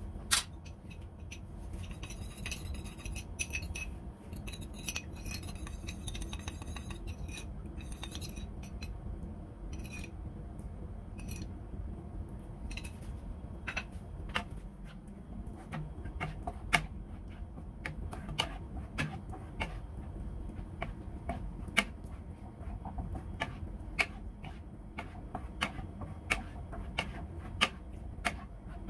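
Thick crab curry sauce simmering in a pan, its bubbles bursting as irregular sharp pops and crackles, which come more often in the second half, over a steady low rumble.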